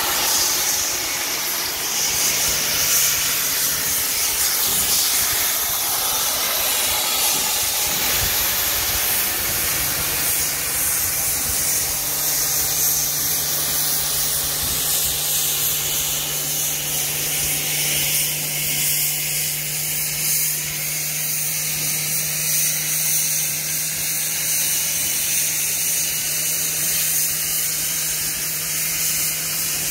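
Steam locomotive 241P 17 hissing steam from around its cylinders as it moves off slowly. A steady low hum joins in about ten seconds in.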